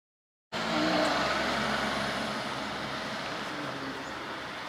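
Road traffic: a passing motor vehicle, a steady rushing noise with a faint low engine hum, loudest about a second in and slowly fading. It cuts in suddenly out of dead silence.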